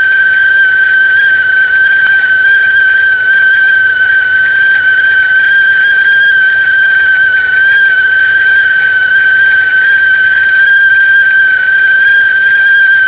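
Whistling tea kettle at the boil: one loud, steady, high-pitched whistle.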